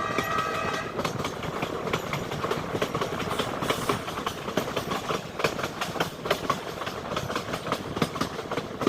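Passenger train running on the rails: a horn chord ends just under a second in, then the clatter of wheels over rail joints goes on, with many sharp clicks and knocks over a steady rumble.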